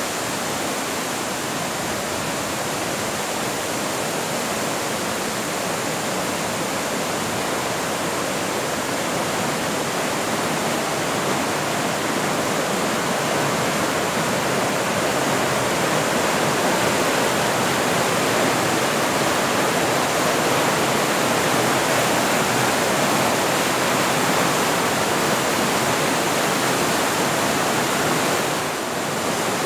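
Whitewater rapids of a rocky river rushing steadily, growing somewhat louder about halfway through.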